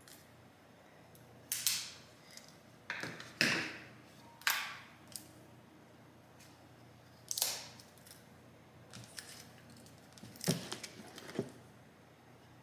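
Oculus VR controllers and their plastic packaging being handled while the battery pull-tabs are pulled out: about seven short scrapes and clicks at irregular intervals, with quiet room tone between.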